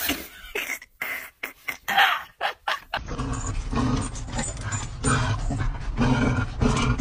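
Dogs making excited whining, vocal sounds, over a steady low rumble from about three seconds in; before that, a few short sharp sounds.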